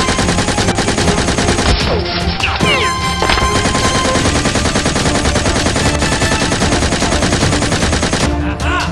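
Dubbed-in machine-gun sound effects: continuous rapid automatic fire, with a few brief whistling sweeps about two and a half to three and a half seconds in.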